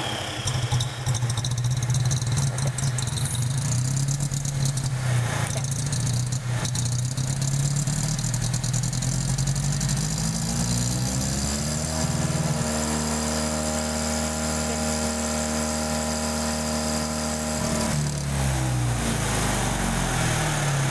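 John Deere 820 tractor's four-cylinder gasoline pony starting motor running, freshly set in time after a distributor rebuild. About ten seconds in its speed rises, holds higher for several seconds, then drops back.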